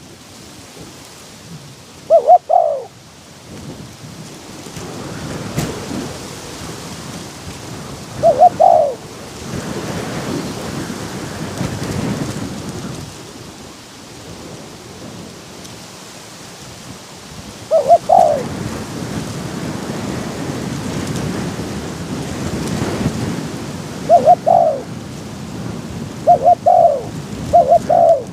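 Spotted doves cooing in short two-note phrases, about six times, with the last three coming close together near the end. Strong wind buffets the microphone in long rumbling gusts underneath.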